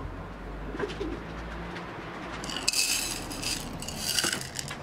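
A pigeon cooing in the background, with two short bursts of rattling, around the middle and near the end, as small gravel stones are handled and scattered from a metal pot.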